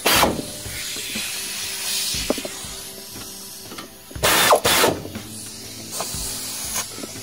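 Hand ratchet clicking as the front brake caliper bolts are tightened. Two loud scuffs of clothing rubbing against the microphone come at the start and about four seconds in.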